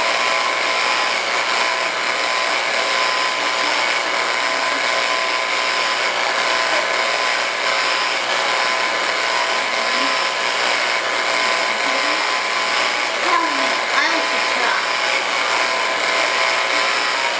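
A kitchen appliance's electric motor running steadily with a constant whine, under a few faint voices.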